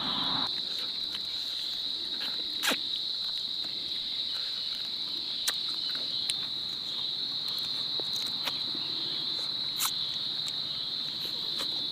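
A chorus of insects calls in a steady, unbroken high-pitched drone, with a few faint clicks. It cuts off suddenly at the end.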